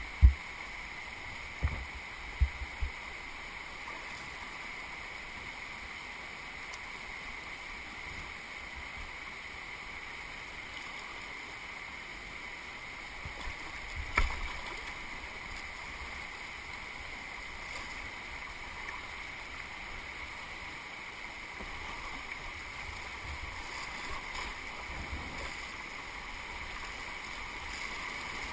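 Steady rush of a fast, flood-high river moving around a kayak, with a few low knocks near the start and once about halfway through. The rush of water grows louder near the end as the kayak nears a stretch of whitewater rapids.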